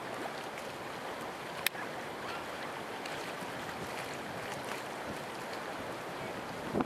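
Steady outdoor rush of wind and rippling lake water, with one sharp click a little under two seconds in and a short louder sound near the end.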